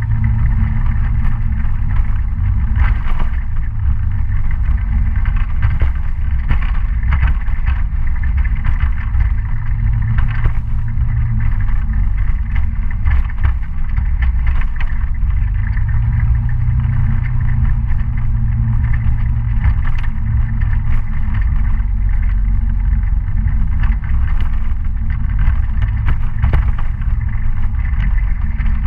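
Kymco Citycom S 300i scooter riding on a rough dirt road: a steady low engine rumble that swells and eases a few times, with many scattered knocks and rattles from the bumpy ground.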